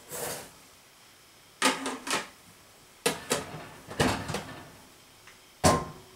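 Dry rice rustling briefly as it is scooped from a plastic storage tub, then a series of sharp plastic clacks and knocks as the tub and its lid are handled and shut, with one heavier knock near the end.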